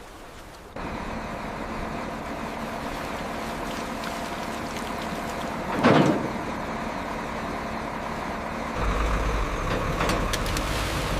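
Heavy truck engine running steadily. A loud, short whoosh about six seconds in, then the engine grows louder and deeper near the end.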